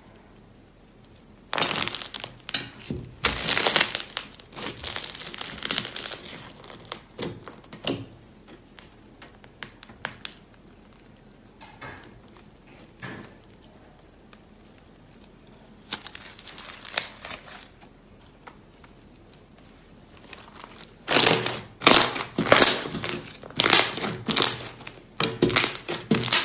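Slime being squeezed and stretched by hand, crackling and crinkling in dense spells: a long one starting about a second and a half in, a short one in the middle, and another long one near the end.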